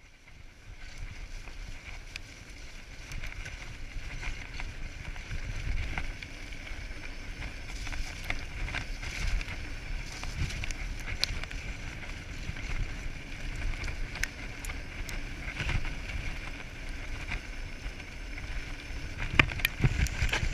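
Mountain bike riding fast down a dirt trail: tyre roar and wind rumble on the microphone, with frequent clicks and rattles from the bike over the bumps, a few sharper knocks near the end.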